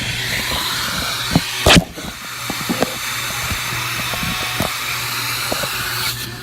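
Vacuum cleaner running steadily with a hiss and low hum, its nozzle knocking and clicking against the car's interior, with one louder knock a little under two seconds in.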